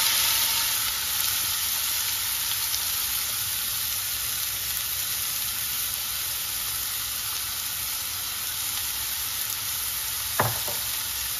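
Diced green apple frying in hot sesame oil in a kadai: a steady sizzle that sets in loudest as the apple is tipped in, then settles. A single sharp knock about ten seconds in.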